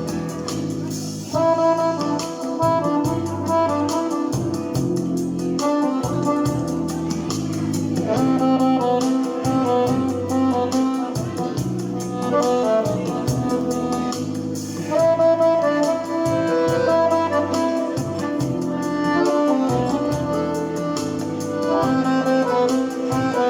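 Instrumental music: a reedy lead melody played over a MIDI backing track with a steady, rhythmic bass line.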